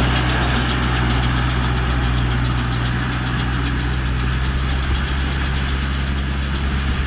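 Diesel tractor engine running steadily, with a fast, regular ticking over it from the machinery.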